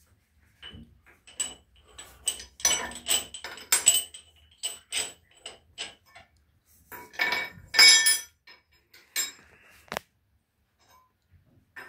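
Irregular metal clinks and clanks of hands and tools refitting the compression pins and fittings on the cylinder heads of a stopped 1954 Wichmann two-cylinder two-stroke diesel, with a busy cluster about three seconds in, the loudest clanks near eight seconds and a single sharp tick at about ten seconds.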